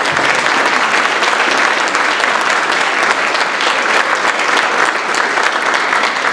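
Audience applauding: many hands clapping at once, a dense, steady patter.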